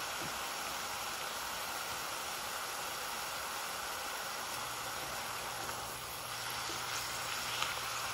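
Wild greens cooking in olive oil in a pot, giving a steady soft sizzle and hiss of steam. A faint low hum joins about halfway, and near the end a wooden spatula stirs the greens with a few light clicks.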